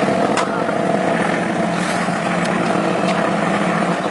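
A machine running steadily: an even low hum with a few sharp clicks or taps over it.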